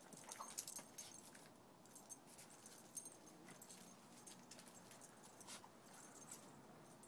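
Faint, irregular clinking of dog collar tags as two dogs play-wrestle.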